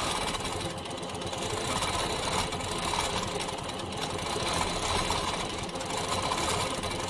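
Longarm quilting machine running with its stitch regulator on, the needle stitching at a rapid, even rate while it is guided around a small pebble shape in free-motion quilting.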